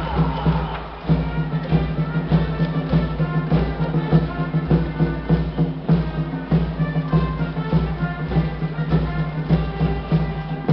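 Baseball cheer song: a melody over a steady, regular drum beat.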